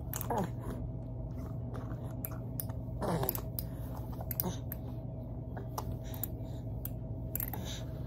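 Plastic baby rattle-teether toy clicking and clattering irregularly as a baby grips and turns it, with two short falling sounds, one near the start and one about three seconds in.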